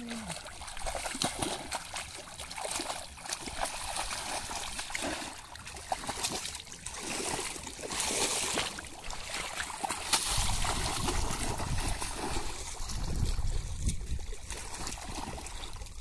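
Hands scooping and slopping through wet mud and shallow muddy water, with irregular small splashes and squelches. From about ten seconds in, a low wind rumble on the microphone joins them.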